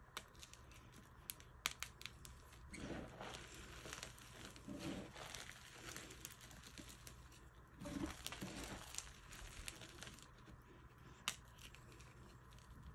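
Hands crushing and crumbling purple dyed chalk blocks mixed with glitter. There are a few sharp crunches, about a second in and again near the end, and in between longer stretches of gritty, powdery rubbing as the crumbled pieces are squeezed between the fingers.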